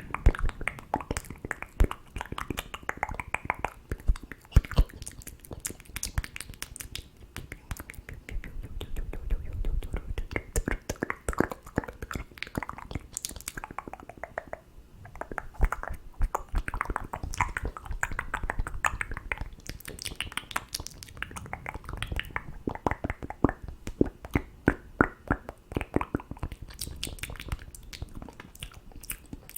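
ASMR mouth sounds close to the microphone: a dense, irregular run of wet clicks, tongue pops and lip smacks.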